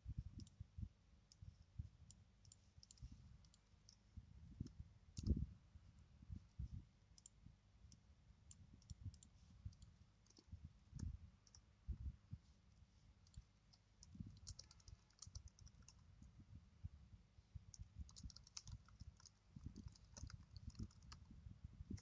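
Faint clicks of a computer mouse and keyboard keys, with dull thumps among them, the loudest about five seconds in. Quick runs of key taps come about two-thirds of the way through and again near the end.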